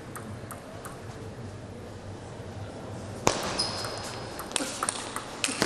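Celluloid table tennis ball clicking: a few faint bounces, then about three seconds in a sharp serve starts a fast rally of ball strikes on rubber paddles and the table. A brief high squeak comes just after the serve.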